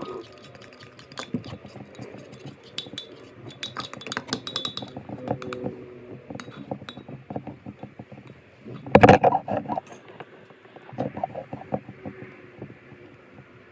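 A spoon stirring thick batter in a ceramic mug, clinking and scraping against the sides in quick, uneven taps. About nine seconds in comes a louder burst of knocking lasting about a second.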